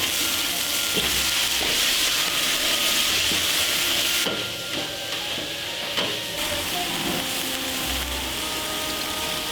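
Food frying and sizzling in a hot pan, with occasional clicks from stirring; the sizzle eases a little about four seconds in.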